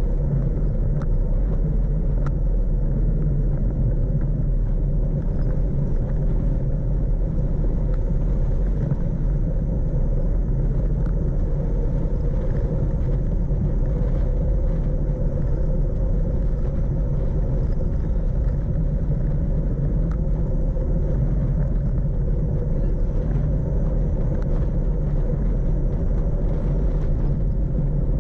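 Steady wind rumble on the microphone of a bicycle-mounted camera riding downhill, mixed with the hum of tyres on asphalt.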